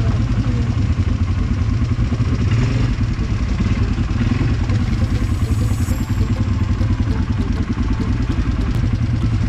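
ATV (quad bike) engine running while riding, a steady low drone.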